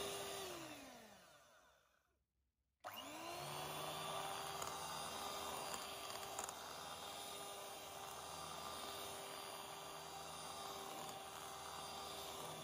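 Electric hand mixer beating a thick cream. Its motor whine drops in pitch and stops within the first two seconds. It starts again just under three seconds in, rising quickly to a steady run.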